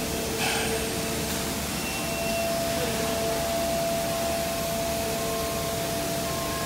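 Steady machinery noise on a tire-curing factory floor: an even hiss with several steady humming tones, one of which sets in about two seconds in.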